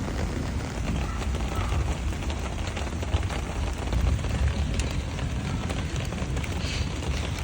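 Rain falling steadily, with a strong low rumble underneath.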